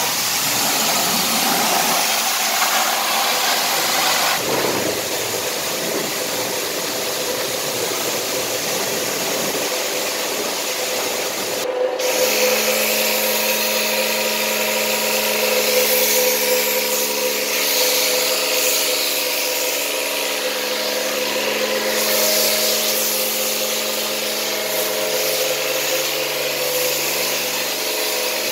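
High-pressure washer spraying a car with a loud, steady hiss. It cuts out briefly about 12 seconds in, then sprays again with a steady motor hum under the spray while snow foam is laid over the car.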